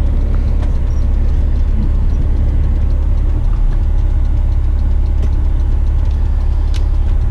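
Western Star dump truck's diesel engine running steadily, heard from inside the cab as an even, low rumble.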